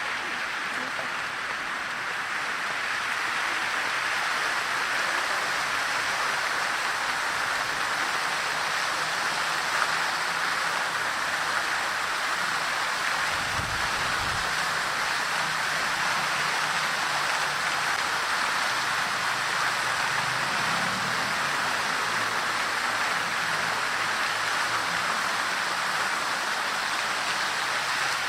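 Fountain water splashing steadily into its basin, an even rushing hiss. A brief low rumble passes under it about halfway through.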